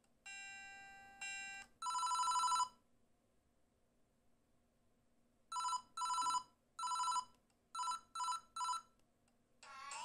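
Panasonic EB-G50 mobile phone playing previews of its built-in beep ringtones through its small speaker. A buzzy tone in two steps is followed by a fast warbling two-tone beep. After a pause of about three seconds come six short bursts of the same warbling beep in an uneven rhythm, and a busier electronic melody starts just before the end.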